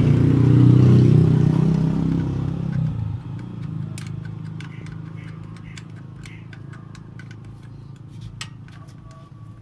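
A motor vehicle engine running nearby, loud for the first three seconds, then dropping to a low steady hum. Later come a few light metallic clicks of a wrench working a bolt.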